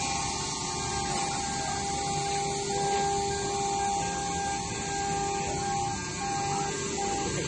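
HQD air-cooled spindle of a CNC router running at speed: a steady whine over an even hiss of air.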